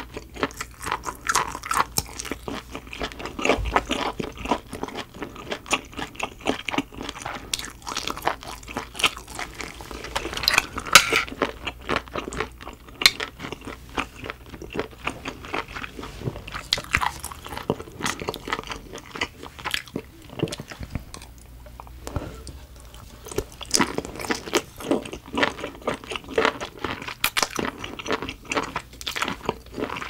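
Close-miked chewing and mouth sounds of a person eating steamed shellfish, with many short sharp clicks throughout.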